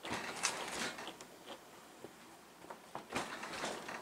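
A refrigerator being worked into a tight cabinet opening: a few scattered knocks and clicks with light scraping, the loudest right at the start and about three seconds in.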